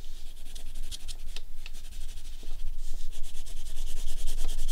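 Brown wax crayon rubbing on paper in quick, light back-and-forth strokes as an area of the drawing is shaded in.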